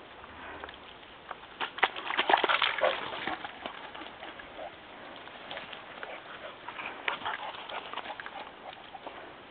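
Dogs play-fighting: a burst of scuffling with short vocal noises about two seconds in, then lighter scattered rustles and clicks.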